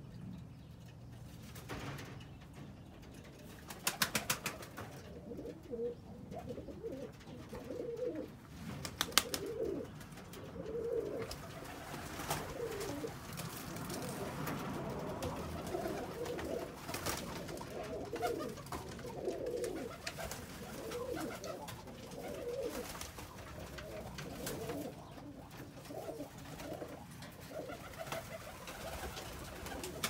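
Domestic pigeons cooing over and over, with two short bursts of rapid clicks about four and nine seconds in.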